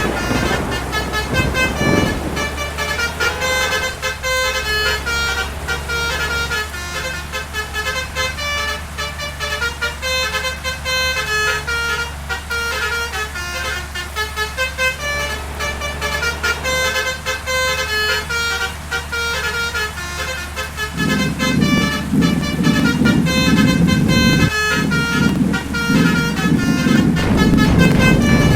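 A bus's basuri 'telolet' multi-trumpet air horn playing a fast, rhythmic melody of changing notes over the steady hum of the bus engine. About twenty seconds in, a louder low rumble from the vehicle joins.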